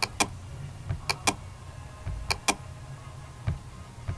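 Sharp clicks in pairs, a fifth of a second apart, coming three times about a second apart, over a low steady hum.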